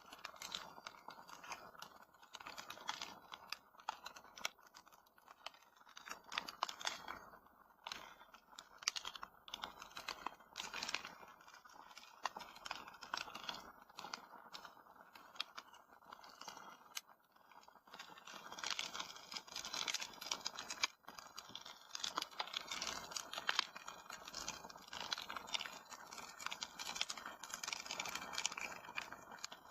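Wood fire crackling in a fireplace: an irregular run of sharp pops and snaps over a soft hiss, growing denser about two-thirds of the way through.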